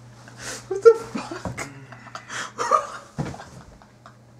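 Young men laughing in short, breathy bursts with a few brief squeaky voiced laughs, over a steady low hum.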